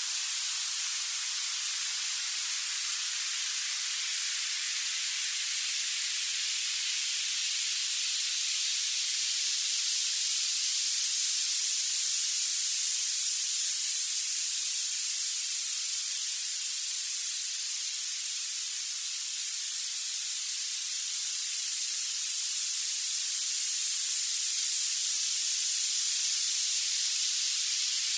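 Violet noise: a steady, even hiss with its energy piled into the highest pitches and nothing in the low range.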